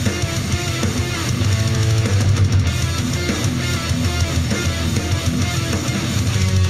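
Alternative punk rock track with electric guitars and a heavy bass line, played back on a JBL Flip 3 portable Bluetooth speaker in a sound test.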